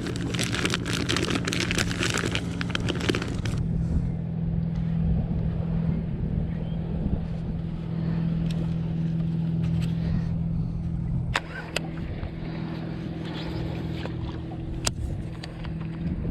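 Boat motor running steadily with a low, even hum. A loud rushing of wind and water covers the first four seconds, then eases off.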